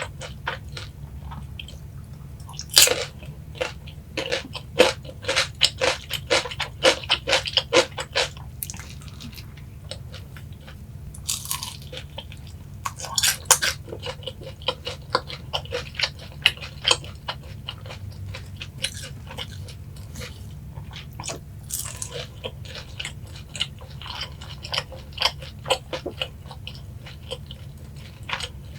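Close-miked biting, crunching and chewing of boneless yangnyeom fried chicken, in clusters of crisp crackles with quieter chewing between, over a steady low hum.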